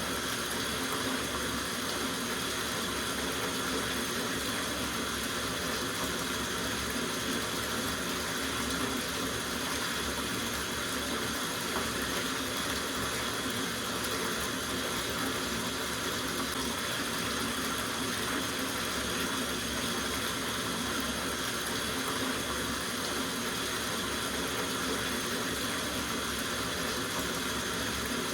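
Water running steadily from a tap into a soaking bathtub, a constant splashing rush with no change.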